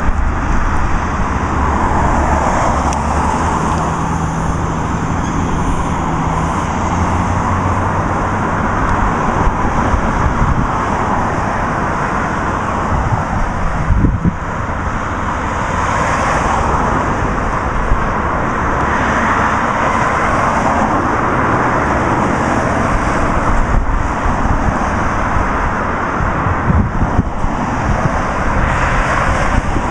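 Steady road traffic noise, a continuous rushing hum that swells and fades a little as vehicles pass.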